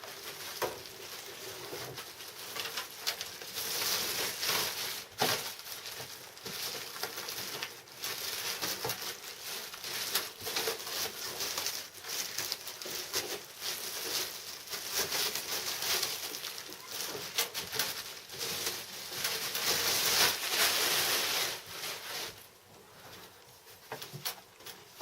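Packing materials being handled around a PC case: a continuous, uneven rustling and scraping with scattered knocks and clicks. The sound eases off near the end.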